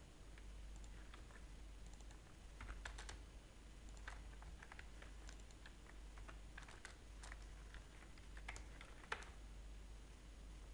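Faint, irregular clicks of a computer keyboard and mouse being used, over a low steady hum.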